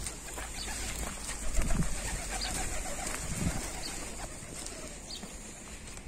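Feral pigeons cooing a few times.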